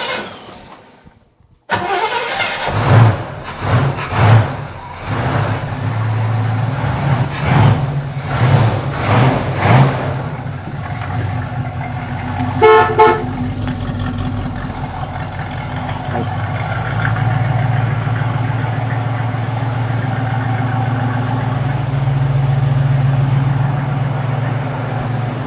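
1967 Camaro's 327 V8 with a Holley carburetor catching about two seconds in, revved in several quick blips, then settling into a steady idle. It sounds nice and healthy.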